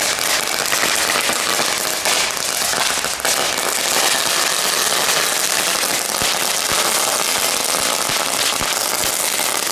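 Small consumer ground firework burning on paving stones with a continuous dense crackling and fizzing, with sharper pops now and then.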